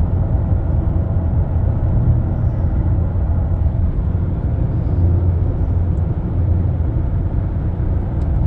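Steady low rumble of road and engine noise inside the cabin of a 2005 Mercedes-Benz E320 CDI (W211) cruising at highway speed.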